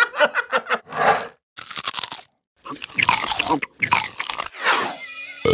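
Crunchy apple-biting sound effects: a run of bites and crunches, then a pause and a longer run of crunching.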